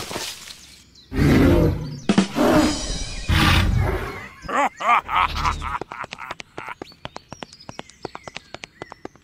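Several loud creature roars, a dubbed monster sound effect, one after another for about five seconds, then a rapid run of short sharp clicks in the last three seconds.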